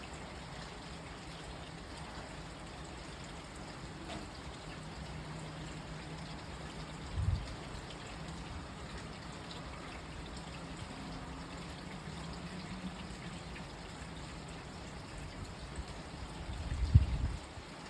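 Rain falling steadily, with water trickling and running. A short low thump comes about seven seconds in, and a louder burst of low rumbling comes near the end.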